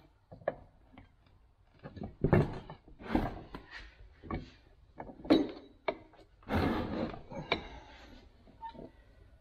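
Heavy cast-iron Record No. 6 bench vise being tipped over and laid on its side on a wooden workbench: irregular metal clunks and scrapes against the wood, loudest a little past the middle.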